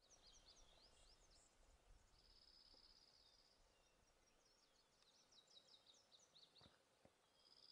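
Faint birdsong: quick runs of high chirps, with a steady high trill lasting over a second about two seconds in.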